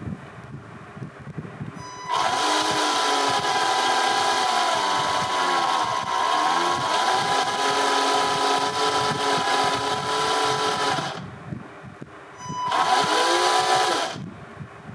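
Small electric motor and gear train of a 1/10-scale RC Unimog U423 running, with a steady high whine and a pitch that rises and falls as the speed changes. It runs for about nine seconds, stops, and starts again for a shorter run near the end.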